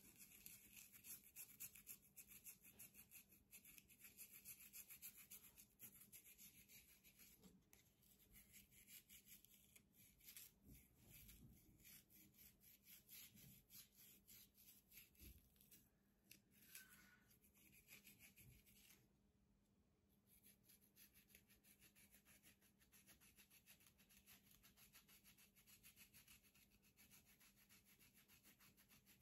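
Quiet dry scraping of a plastic fine-tooth comb raked through dandruff-flaked scalp and short hair, in quick repeated strokes, with a brief pause about two-thirds of the way through.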